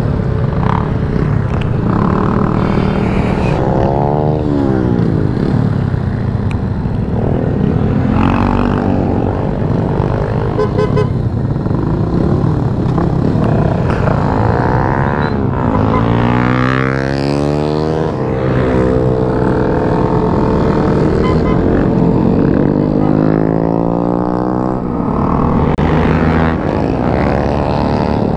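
Motorcycles passing one after another, each engine note rising and then falling as it goes by, over a steady low engine rumble.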